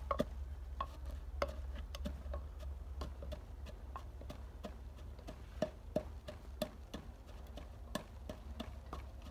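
Wooden pestle pounding whole spices in a wooden mortar, with dull knocks about twice a second as the spices are crushed into a paste.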